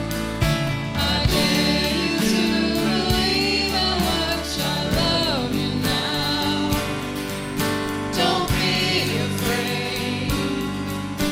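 A choir singing a gospel-style song with instrumental accompaniment and a steady beat.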